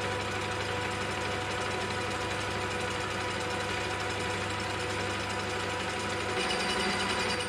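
Metal lathe running under a turning cut along the outside of a large-diameter tube, a steady machine hum with the cutting tool shaving off a continuous chip. About six seconds in, higher ringing tones join and the sound gets a little louder.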